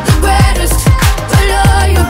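Background electronic pop music with a steady beat of deep kick drums that drop in pitch, about four a second, over a sustained bass line.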